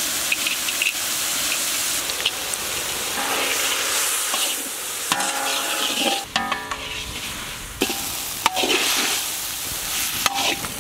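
Chopped onion, tomato and cashew nuts sizzling in a large kadai while being stirred with a spatula, with a steady frying hiss and scattered scrapes and clicks of the spatula against the pan.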